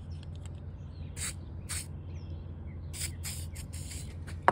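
WD-40 aerosol can spraying onto a plastic putty knife in several short hissing bursts, so the WoodEpox will smooth out without sticking. A brief sharp squeak, falling in pitch, comes at the very end and is the loudest sound.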